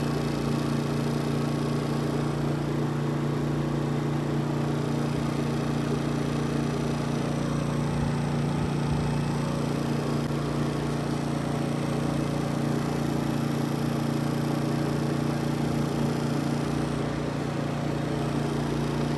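An engine running steadily at a constant speed, a continuous even hum.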